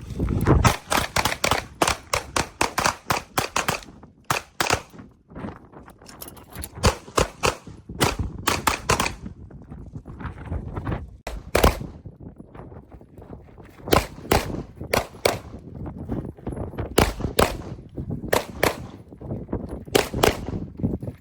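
Pistol shots fired in quick strings of several rounds each, with short pauses between the strings, typical of speed-shooting drills.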